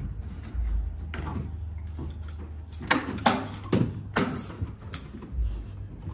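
A series of sharp knocks and clacks, about half a dozen, from workers fitting a large printed vinyl backdrop banner at its edges, over a steady low hum.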